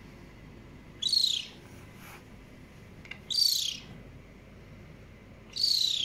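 Caracal kitten chirping three times, about two seconds apart: high, bird-like calls, each about half a second long and falling in pitch.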